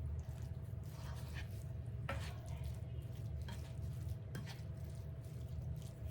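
A few light clicks of a utensil against a pan of cooked ground beef as cheese is added, over a steady low hum.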